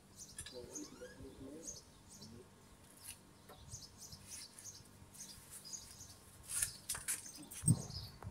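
Small birds chirping in short, high calls scattered throughout. Near the end comes a run of sharp clicks and rustling with one thump, as the phone camera is handled and moved.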